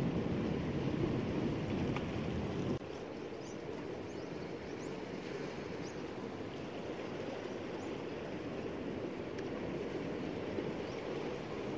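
Sea surf washing over coastal rocks, with a heavy low wind rumble on the microphone that cuts off suddenly about three seconds in, leaving a steady wash of water.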